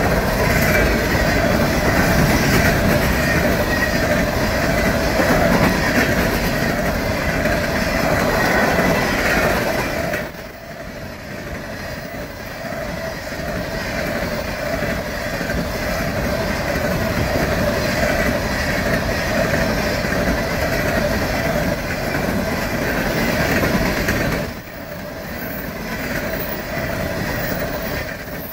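Union Pacific freight train of coal cars rolling past at close range, its steel wheels rumbling and clattering over the rails, with a steady high ringing tone over the noise. The loudness drops suddenly about ten seconds in and again near the end, then builds back up.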